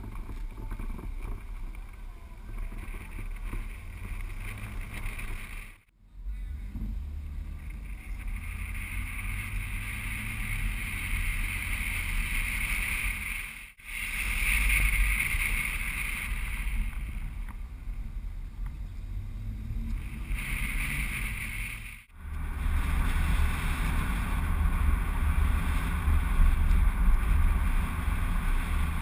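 Wind buffeting and road noise from a car driving along a street, picked up by a camera mounted on the outside of the car. A deep rumble runs under a steady hiss, cutting out abruptly three times where clips are joined, and is loudest near the end.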